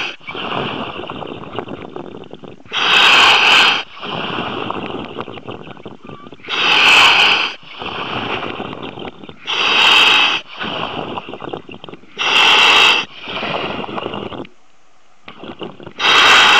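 A surface-supplied diver breathing on his demand regulator over the dive radio: a loud hiss about every three seconds, five times, with rough bubbling noise between the breaths.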